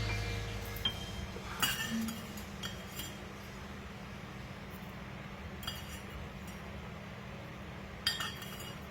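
Light metallic clinks and taps of CZ SP-01 Shadow pistol parts being handled and set down, about seven scattered over several seconds, over a faint steady hum. Background music fades out at the start.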